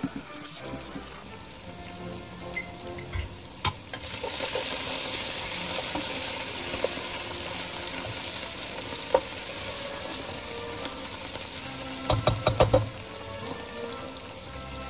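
Chopped onions sizzling in fat in a stainless steel pan and stirred with a wooden spoon, the sizzle setting in about four seconds in and holding steady. A quick run of sharp knocks comes near the end, over faint background music.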